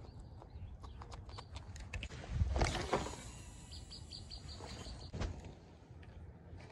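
A bird chirping a quick run of short, evenly spaced high notes midway, over small clicks and brushing from handling fishing gear, with one louder rush of noise about two and a half seconds in.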